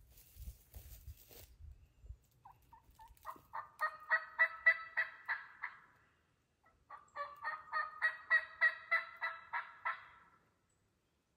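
Turkey calling: two runs of rapid, evenly spaced notes, about five or six a second and each run some three seconds long, swelling and then fading. Low rumbling handling noise comes before them.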